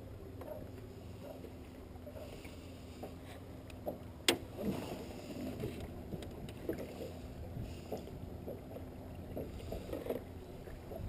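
Handling noise in an aluminum boat: small knocks and taps as a crappie is taken from the net and laid on a measuring tape, with one sharp click about four seconds in, over a low steady rumble.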